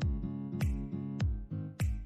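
Background music with a steady beat: a deep kick drum about every 0.6 s under sustained chords and crisp high percussion hits.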